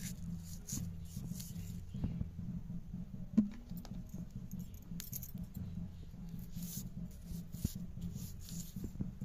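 Green chillies being slit and sliced by hand against a bonti, the upright fixed kitchen blade: scattered soft crisp cuts and rustles, with one sharp click about three and a half seconds in. A steady low hum runs underneath.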